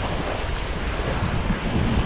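Surf waves washing and sloshing right around the microphone, with gusty wind rumbling on it.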